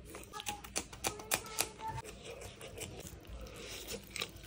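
Close-up eating sounds: chewing and wet mouth clicks from a person eating chicken biryani by hand, with a quick run of sharp clicks in the first two seconds and a bite into a chicken wing near the end.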